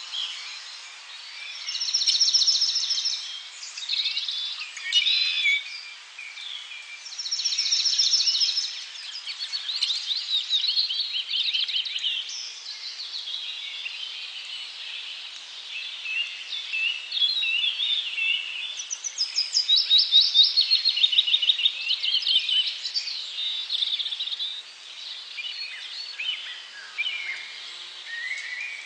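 A chorus of wild birds: many overlapping high chirps and rapid trills, swelling in louder bursts every few seconds.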